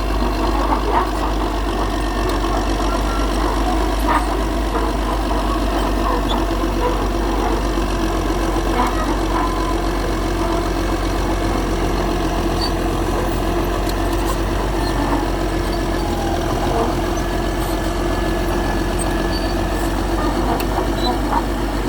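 An engine running steadily at an even speed, with a few faint knocks.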